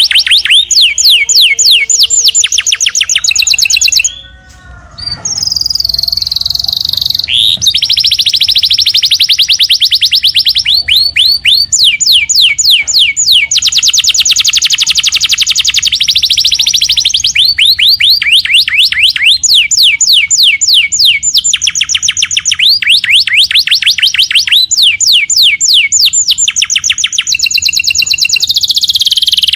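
Domestic canary singing loudly in long, fast trills and rolls of rapidly repeated high notes, with a brief pause about four seconds in.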